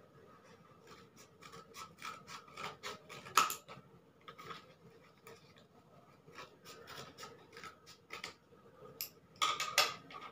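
Scissors snipping through a piece of thin box cardboard: a quick run of short cuts and rustling of the card, with a few louder snips near the end.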